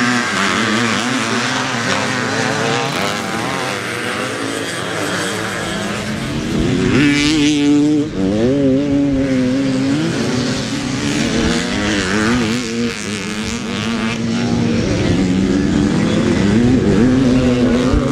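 Several classic motocross bikes racing, their engines revving up and easing off with overlapping notes. The loudest rev climbs about seven seconds in and drops away sharply just before eight seconds; another loud stretch comes near the end.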